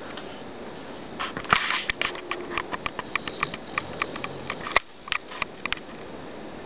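Sleeping pit bull snoring, heard as a run of sharp, irregular clicks over about four seconds, the loudest one near the end, over a steady hiss.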